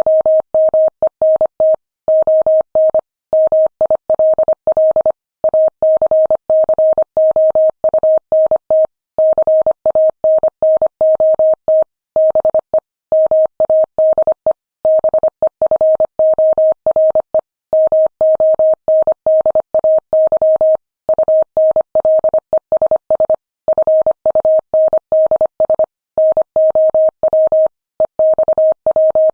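Morse code at 25 words per minute: a single steady mid-pitched tone keyed on and off in quick dots and dashes, with short pauses between letters and longer ones between words.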